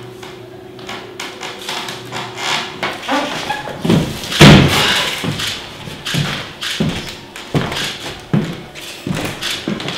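A loud heavy thud about four and a half seconds in, then a run of separate dull knocks roughly one a second, like footsteps, as a large lump of dough-like mass is carried through the room.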